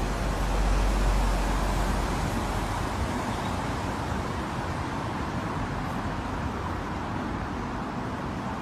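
City street ambience: steady traffic noise, with a heavy low rumble over the first few seconds that then eases.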